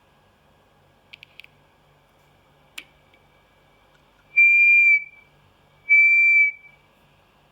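Piezo sounder on the AD8307 RF detector's LM386 amplifier, answering a nearby FM transmitter: a faint steady whine with a few clicks, then two loud, steady high-pitched tones of about half a second each, a second and a half apart.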